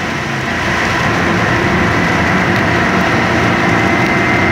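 Steady running noise of a vehicle: an even low rumble with a thin, steady high whine held through it.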